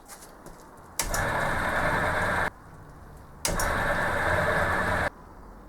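Electric drill motor run in two short bursts of about a second and a half each, starting and stopping abruptly, drilling into the gummy zamak casting.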